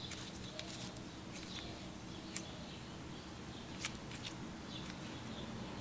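Clear slime with pom-poms being squeezed and squished by hand: faint, scattered small clicks and pops.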